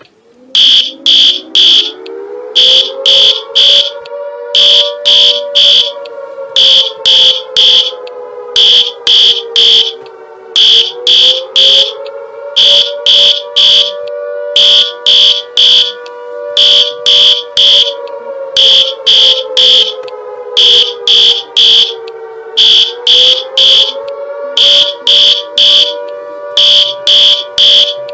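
Emergency alert (EAS-style) alarm: loud, high-pitched beeps in groups of three, repeating about every two seconds, over a lower two-note siren that rises quickly and then slowly falls, in a cycle of about twelve seconds.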